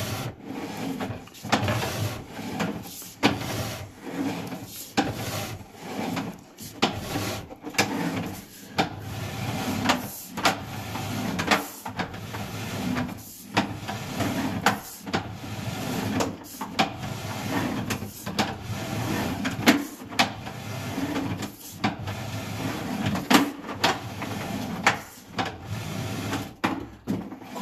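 Sewer inspection camera's push cable being pulled back out of the drain line: an irregular run of clicks and knocks over a rattling, scraping noise.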